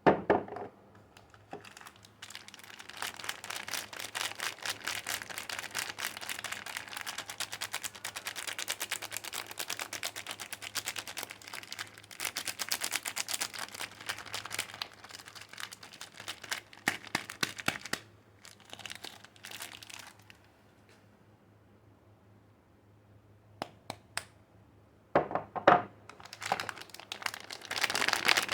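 Soap wrapping crinkling and tearing as soap bars are unwrapped by hand. There is a long dense stretch of crackling, a lull of a few seconds, then more short crinkles near the end.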